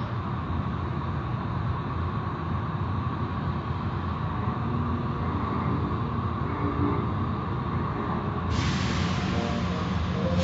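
Automatic tunnel car wash machinery running steadily, a low hum with water splashing. About eight and a half seconds in, a loud spray hiss cuts in suddenly.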